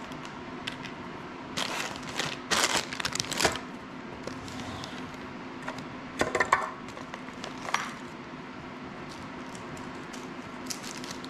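Hands rummaging through small drone hardware in plastic bags and a plastic parts box: bursts of rustling and clicking about two seconds in and again past the middle, over a steady low hum.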